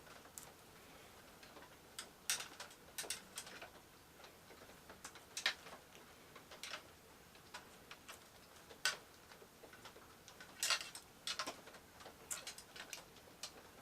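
A hand blade cutting and scraping the insulation off 14 gauge copper wire: irregular clicks and short scrapes.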